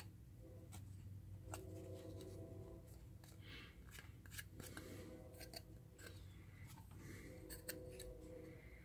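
Faint rustling and scattered small ticks and clicks of a tissue wad rubbed over a circuit board to scrub off solder flux with alcohol, and of the board being handled, over a low steady hum.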